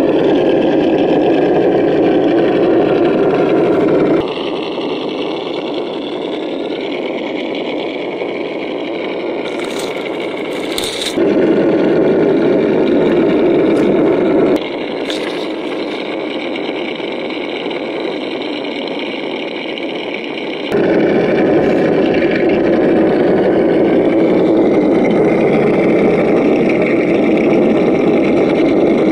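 Simulated V8 engine sound from an RC crawler's sound module, running steadily and switching abruptly between louder and quieter stretches several times, with a few short clicks in the middle.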